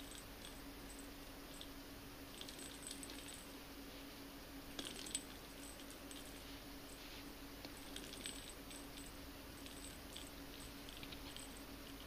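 Light scattered clicks and taps on a terracotta tile floor as a cat plays with a small foam ball, with a few sharper taps about five seconds in and again about eight seconds in, over a faint steady hum.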